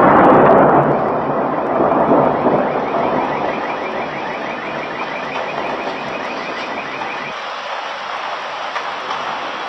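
Thunder rumbling, loudest at the start and fading over the first few seconds. From about two and a half seconds in until about seven seconds, a quick, repeating high warble runs over it, like a car alarm set off by the storm.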